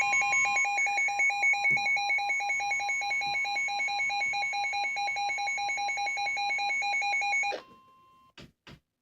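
NOAA Weather Radio alert: the steady 1050 Hz warning alarm tone, with a rapid electronic beeping alarm pulsing over it, which stops about seven and a half seconds in. The tone carries on alone for a moment, followed by two short clicks.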